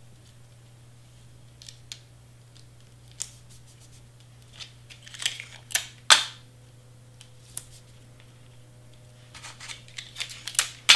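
Cardstock and tape being handled: scattered paper crinkles and sharp clicks, louder about five to six seconds in and again near the end.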